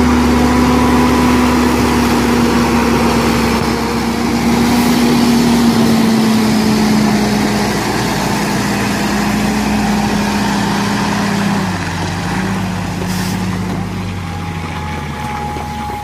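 Heavy log truck's diesel engine running steadily, its note dropping slightly about six seconds in and again about twelve seconds in.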